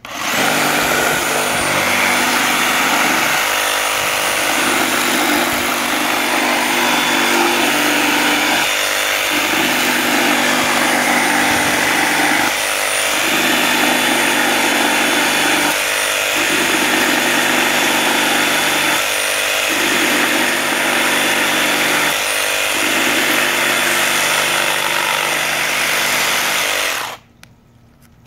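DeWalt FlexVolt cordless reciprocating saw with a pruning blade running and cutting through a wooden branch. It is a steady, loud saw sound, and its lower hum drops out briefly about every three seconds. It cuts off sharply about a second before the end.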